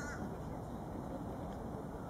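A Canada goose gives one short honk right at the start, over a steady low rumble.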